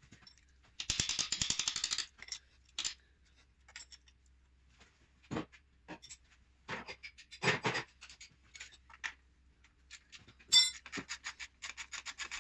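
Hand ratchet clicking in quick runs as a gearbox-to-engine bolt is worked on, about a second in and again near the end, with a few separate knocks of the tool against metal in between.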